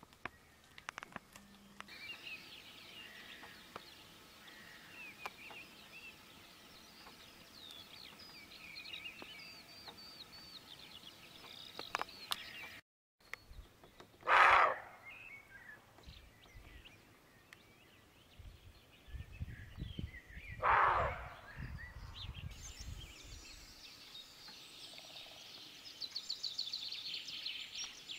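Small birds singing and chirping, with two loud, short sounds a few seconds apart in the middle and a fast trilling song near the end.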